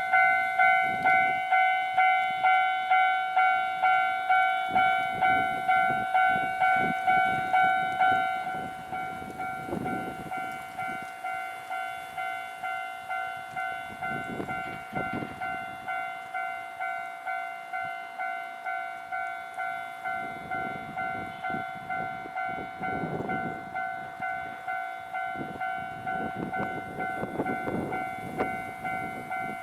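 Japanese level-crossing warning bell ringing in evenly repeated electronic strikes, about one and a half a second. It turns much quieter about eight seconds in and keeps ringing, with a low rumble of a train running over the crossing at times.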